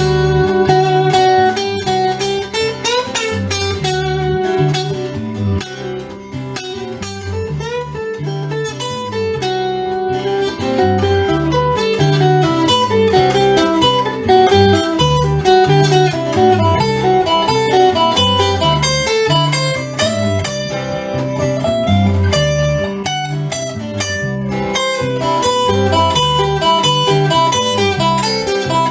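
Instrumental music: guitars play a blues-flavoured break over a steady bass and beat.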